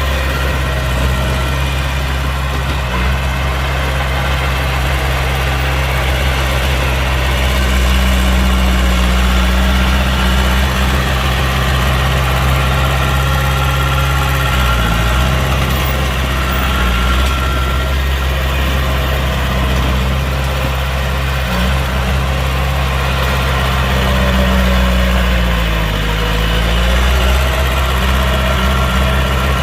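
Heavy diesel engine of earthmoving equipment, a bulldozer or dump truck, running steadily with a deep hum. Its pitch swings briefly up and down a few times.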